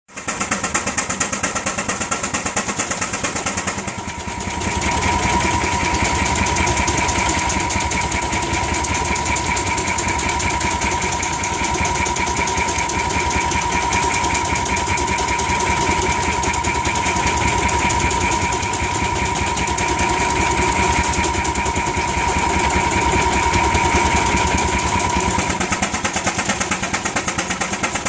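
16 HP Advance steam traction engine running under belt load, driving a power eater through a long flat belt from its flywheel, with a fast even exhaust beat. A steady whine comes in about four seconds in and stops near the end.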